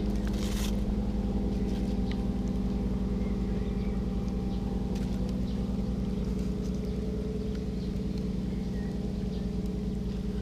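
Steady drone of boat engines out on the reservoir, easing off slowly as the yachts pass. A short rustle of aluminium foil about half a second in.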